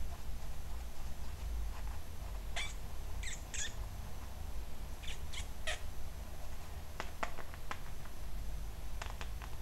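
Young kitten giving a string of short, high-pitched mews, about six of them in the middle of the stretch, followed by a few sharp little clicks.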